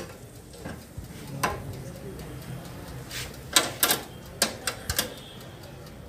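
Sharp metal clicks and clinks of a wire grill rack being pulled out of an electric oven with a clip-on rack handle: one click about a second and a half in, then a cluster of several between about three and five seconds.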